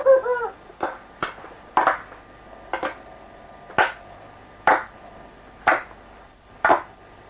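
Hands clapping in a slow, fairly steady beat of about one clap a second, a rehearsal of a handclap part for a song recording.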